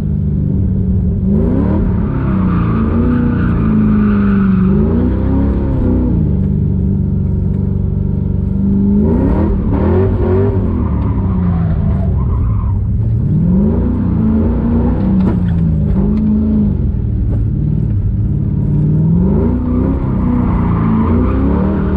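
LS V8 engine of a Mazda Miata NB drift car, heard from inside the cabin, revving up and dropping back again and again under hard throttle.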